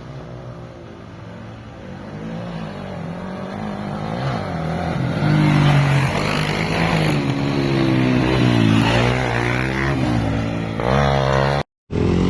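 Off-road motorcycle engine growing louder as the bike approaches, then revving up and down in pitch as it is ridden through a turn. Near the end the sound drops out abruptly for a moment, then engine noise picks up again.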